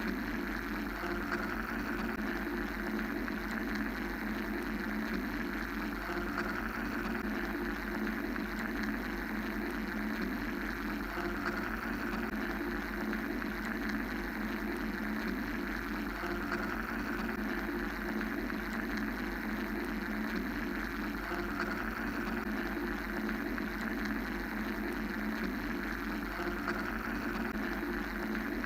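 Steady mechanical white noise: a low hum under a dense band of rumble and a hiss that swells and fades slowly, about every ten seconds.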